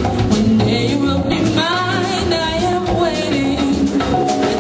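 Live band music with a singing voice over bass and drums; the voice wavers in pitch around the middle.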